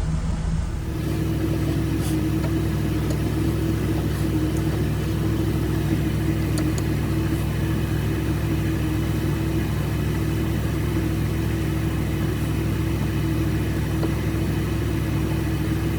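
Two parked cars, a Pontiac Trans Am and a BMW, idling together in a steady low engine hum, left running to charge their batteries. A few faint clicks sound over it.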